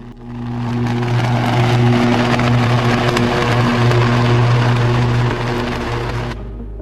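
A steady low machine-like hum with a loud crackling hiss over it. It swells up over the first second and cuts off about six seconds in.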